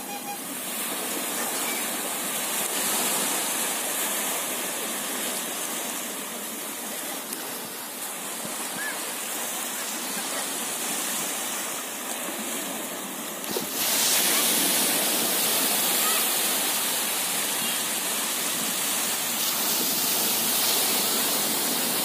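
Small sea waves breaking and washing over a shallow sandy beach, a steady rushing noise that grows louder and brighter about two-thirds of the way through.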